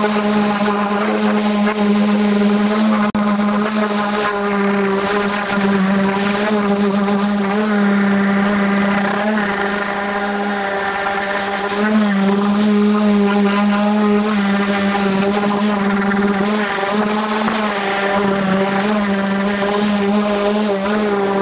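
Makita random orbit sander running steadily as it is pushed across a glued-up pine board panel, sanding the seams between the boards flush. A steady hum whose pitch wavers slightly as the sander is pressed and moved.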